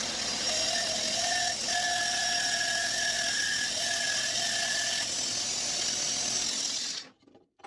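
Shopsmith bandsaw with a half-inch blade running and cutting through a wooden blank: a loud, steady machine noise with a high whine that comes and goes. The noise stops abruptly about seven seconds in.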